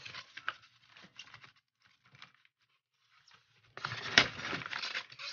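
Packaging being handled during unboxing: scattered small clicks and rustles, then a louder stretch of crinkling and rustling with sharp clicks from a little under four seconds in.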